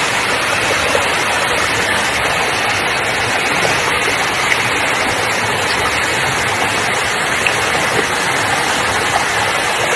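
Waterfall rushing, a loud steady roar of falling water with no let-up.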